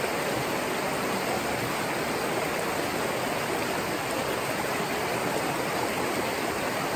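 Small mountain brook rushing steadily over riffles and pocket water, an even, unbroken rush. The stream is running high with snowmelt.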